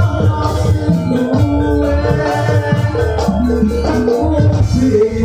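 Javanese gamelan music accompanying a lengger song, with a voice singing over it.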